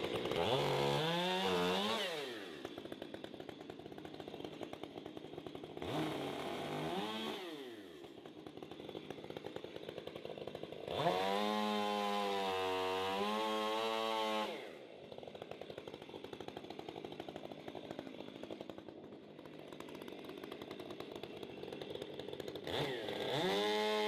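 Gas chainsaw blipped to high revs and dropping back to idle twice, then held at full throttle with a slight waver for about three and a half seconds, cutting into a log to trim off knots. It idles between and revs up again near the end.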